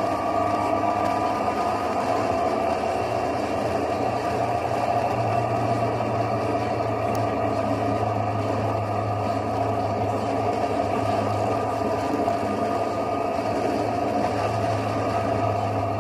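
Motorcycle engine running steadily at cruising speed, heard from the rider's seat behind the windscreen, with no revving or gear changes.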